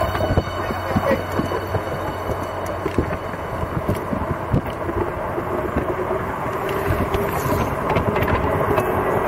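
Electric bike rolling over a concrete road: wind and tyre noise with frequent rattling clicks and knocks from the bike, and a faint steady hum that comes in about halfway.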